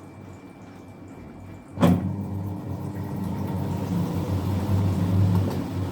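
LG top-load washing machine: a sharp click about two seconds in, then its motor and drum run with a steady low hum that grows slightly louder. With the broken drum nut replaced, the drum runs smoothly without knocking.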